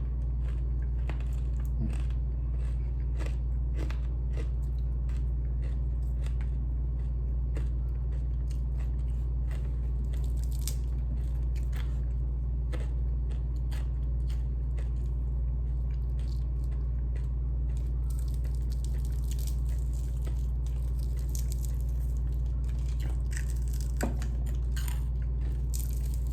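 A person chewing crispy refried chicken with the mouth close to the microphone: irregular small crunches and smacks. Under it runs a steady low hum.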